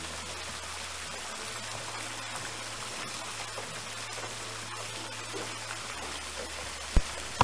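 Thin streams of water falling from a rock face into a pond, a steady splashing trickle. One sharp knock shortly before the end.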